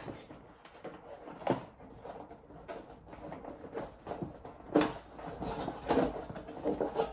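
Cardboard box being worked open by hand: irregular scraping and rustling of cardboard, with three louder scrapes along the way.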